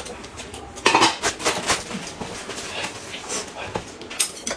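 Mealtime eating sounds: dishes and chopsticks clinking and clattering against plates, mixed with chewing and lip-smacking. The loudest clatter comes about a second in.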